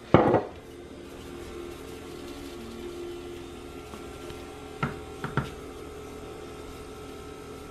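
Seasoning being shaken from a can over raw chicken in a plastic bowl: a faint steady hum with two light taps about five seconds in, half a second apart.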